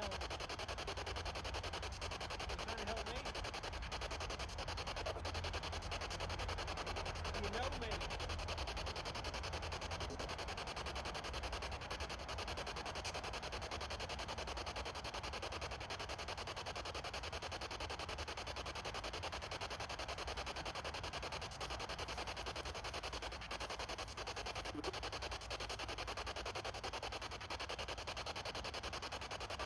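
Steady rushing hiss that does not change, with a low rumble underneath.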